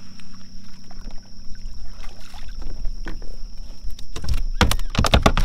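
Small redfish (puppy drum) being reeled up to the side of a kayak: over a steady low rumble, a rapid cluster of splashes and knocks starts about four seconds in as the hooked fish thrashes at the surface.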